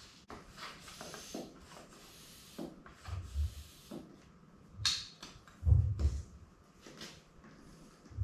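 Rubber bicycle inner tube being handled: irregular rubbing and rustling with short knocks, and a few dull thumps.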